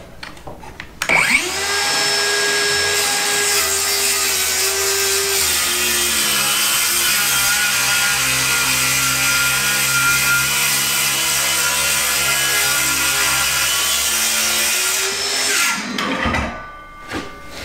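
DeWalt FlexVolt Advantage cordless circular saw starting up about a second in and cutting along the bottom of a hung door for about fourteen seconds, then its blade spinning down. A few short knocks follow near the end.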